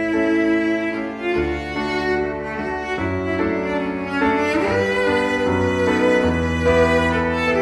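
Slow instrumental music: long held notes over a low bass line that changes every second or so.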